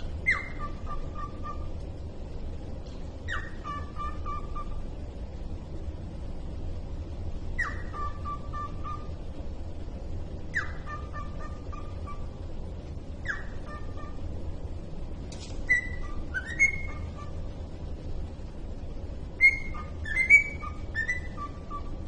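Cockatiel whistling a short phrase over and over, about every three seconds: a falling whistle followed by a quick stutter of lower notes. In the last third it breaks into a run of louder, more varied whistles.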